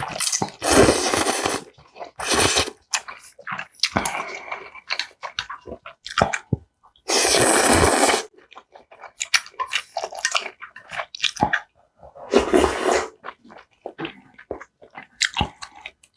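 Close-miked slurping of kalguksu noodles and broth: several loud slurps of about a second each, the longest near the middle, with chewing and wet mouth clicks in between.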